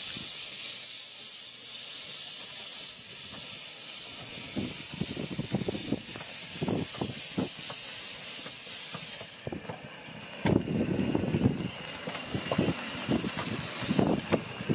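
2ft-gauge steam locomotive moving slowly past with its cylinder drain cocks open, a loud steady steam hiss that cuts off suddenly about nine seconds in. Uneven low thumps from the engine and its running gear begin partway through and grow louder once the hiss stops, as the locomotive passes close by.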